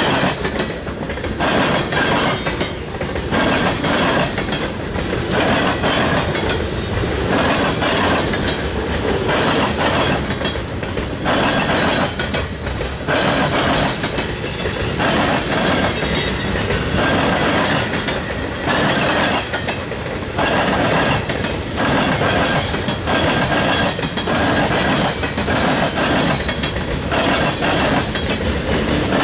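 Union Pacific freight train's cars rolling past at speed, the wheels clacking over rail joints in a steady repeating rhythm over continuous rumble.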